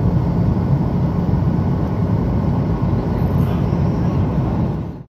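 Steady cabin noise of a jet airliner in flight: the even, deep rush of its turbofan engines and the airflow, heard from inside the cabin, cutting out just before the end.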